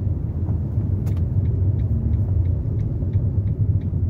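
Low, steady cabin rumble of a Fiat Doblò rolling on a snow-covered road, slowing on a downhill on non-studded friction tyres. From about a second in, a light regular ticking, about three ticks a second, runs over it.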